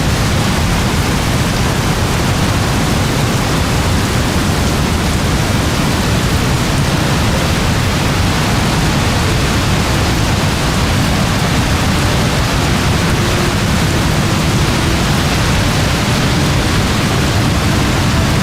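Very heavy rain pouring steadily: a dense, even hiss with a strong low rumble underneath and no single drops standing out.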